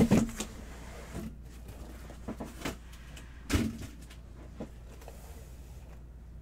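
Cardboard card boxes being handled and set down on a table: scattered soft knocks and cardboard rubs, with a louder thud a little past halfway.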